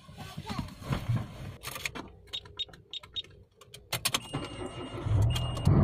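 Car keys rattling and clicking in a Mitsubishi's ignition lock, then the key is turned and the engine starts about five seconds in, settling into a steady idle. A faint steady high tone sounds just before the engine catches.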